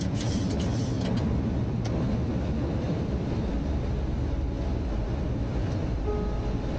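Steady rumble of airflow and engines in a Boeing 737 cockpit on approach, with the landing gear just selected down, and a few sharp clicks in the first second.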